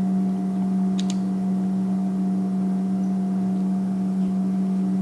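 Steady low hum with fainter overtones above it, unchanging throughout, with a light click about a second in.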